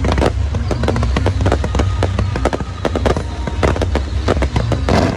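Fireworks going off in quick succession: a dense, continuous crackle of many sharp pops and bangs over a steady low rumble.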